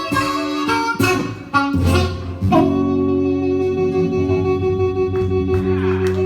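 Blues harmonica and guitar playing the closing bars of a blues, with plucked notes at first, then settling about two and a half seconds in onto a long held final chord.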